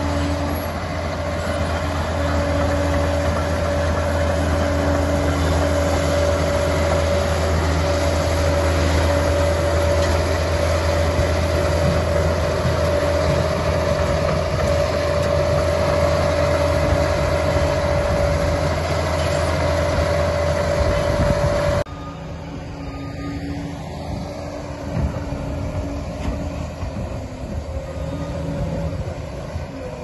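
Liebherr PR 746 crawler dozer's diesel engine running hard under load as it pushes dirt, with a steady high whine over the deep rumble and the steel tracks clanking. About 22 seconds in the sound cuts abruptly to a quieter recording of the dozer working, with uneven knocks and scrapes.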